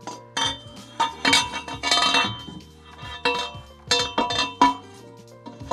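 Steel exhaust parts clinking as a turbo downpipe flange is worked onto the turbo outlet studs: a string of irregular sharp clinks and taps, each ringing briefly, with a quick rattling cluster about two seconds in and another near four and a half seconds.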